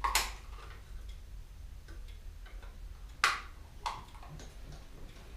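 A few sharp clicks and taps from hands working on a bicycle on a repair stand, fitting the light's cables into their clamp terminals. The loudest come near the start and about three seconds in, over a low steady hum.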